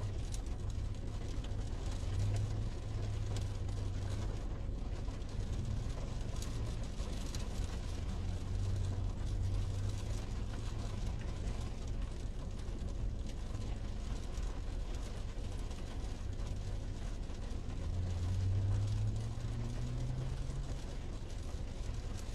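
Heavy rain drumming on a car's roof and windshield, heard from inside the cabin, over a low steady hum that swells briefly near the end.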